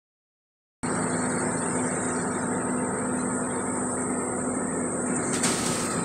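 Diesel engine of an asphalt paver running steadily, a low even drone with a constant hum, starting abruptly after nearly a second of silence. A brief hiss cuts through about five and a half seconds in.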